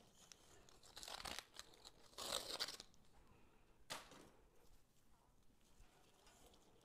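Paper-wrapped rustic wire being handled and pulled off its coil: two short, faint crinkly rustles, then a single sharp click just before four seconds in.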